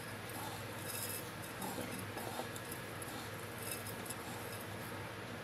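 Hands pressing and turning chicken pieces in breadcrumbs in a ceramic bowl: faint rustling with a few light clinks against the bowl, over a steady low hum.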